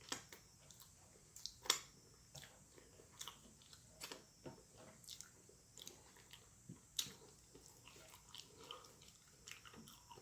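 Close-miked chewing: irregular faint wet mouth clicks and smacks of someone eating, a couple of them sharper and louder.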